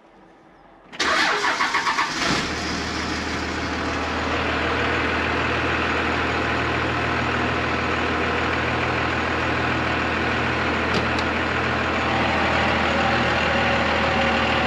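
1997 Dodge 2500's 5.9-litre Cummins 12-valve inline-six diesel cranking with a pulsing starter beat about a second in. It catches after a second and a half and settles into a steady idle.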